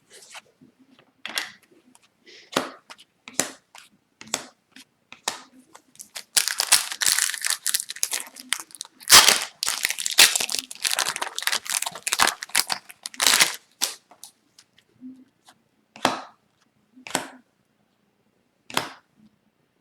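Crinkling and tearing of a foil trading-card pack wrapper being ripped open, dense for about eight seconds in the middle. Before and after it come separate short, sharp clicks and snaps of the cards being handled.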